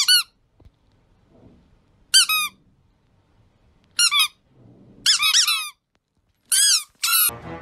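Squeaky toy chick peeping in five short, high-pitched runs of quick chirps, each a few peeps long, a second or two apart.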